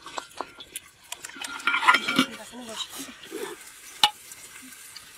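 Metal spoon scraping and clinking against a steel bowl and a brass cooking pot as chopped food is spooned into the pot, with one sharp clink about four seconds in.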